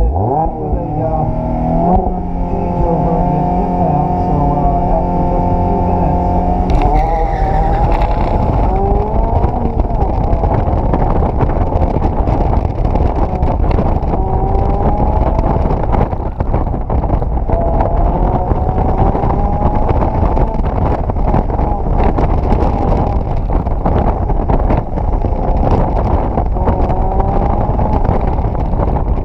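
Mazda MX-5 Miata's four-cylinder engine heard from inside the open-top cockpit: revved up and held at steady high revs at the start line, then the car launches about seven seconds in and the engine runs hard through the gears, revs rising and falling through the corners of an autocross course.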